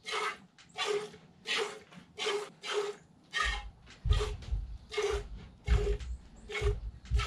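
Hand-milking a mini Jersey cow: squirts of milk hitting the pail in an even rhythm of about two strokes a second. Low bumps and a rumble join in from about halfway.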